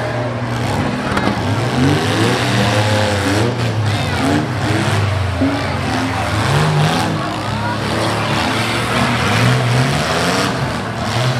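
Several six-cylinder demolition derby cars' engines revving hard and unevenly, their pitch rising and falling again and again as they push against each other in the dirt.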